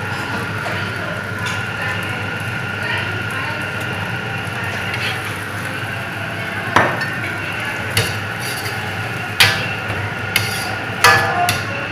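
Lotus root slices stir-frying in a steel wok with a steady hiss, while a metal ladle scrapes the wok and knocks sharply against it about five times in the second half.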